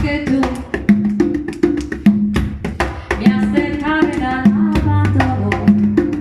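Latin band playing a guaguancó rumba rhythm: repeating drum tones over a dense pattern of sharp wooden clicks, with a short melody line a little past the middle and a held bass note soon after.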